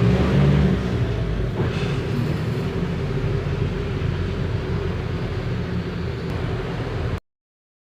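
Mercedes-Benz OF 1519 bus diesel engine running steadily with a low hum, a little louder for the first second or so. A brief hiss comes about two seconds in, and the sound cuts off abruptly near the end.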